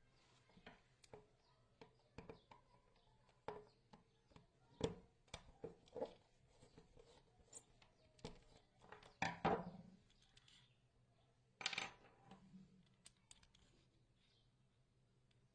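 Irregular light clicks and taps from hand work on small parts, with a few louder knocks about five, nine and twelve seconds in.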